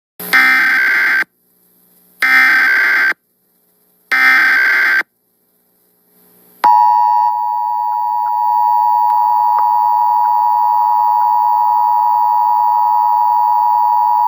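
Emergency Alert System alert opening for a severe thunderstorm warning: three loud one-second bursts of SAME digital header data, evenly spaced, then the steady two-tone EAS attention signal starting about halfway through.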